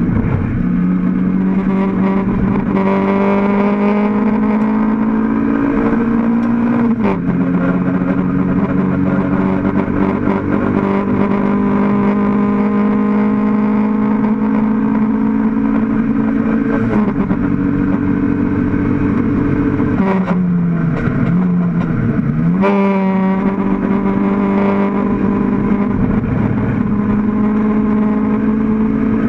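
Mk1 Toyota MR2 race car's mid-mounted four-cylinder engine under hard acceleration, heard from inside the cabin. The pitch climbs slowly and drops sharply with an upshift about seven and about seventeen seconds in. Around twenty seconds in it falls off and wavers as the car slows and changes down, then jumps and climbs again under power.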